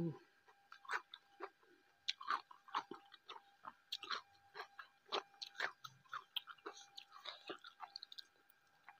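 Close-miked wet chewing and lip smacks of someone eating rice and fried tofu with their fingers: irregular short clicks, a few a second.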